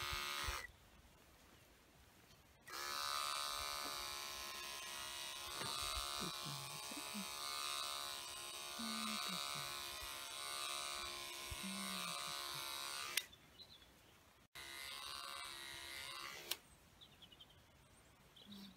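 Electric animal clippers buzzing steadily as they shave a patch of wool on a young llama's neck to clear the site for a blood draw. The clippers run in three stretches: a brief burst at the start, a long run of about ten seconds, then a shorter run after a short stop.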